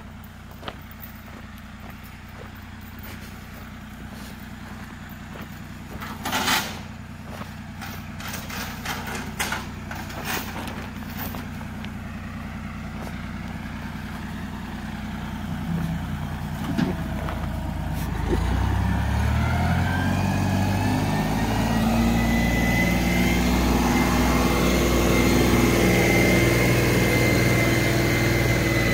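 Cat D4 dozer's diesel engine idling steadily, with a scatter of clicks and knocks. About eighteen seconds in it is throttled up and runs louder, with a rising whine over the engine note.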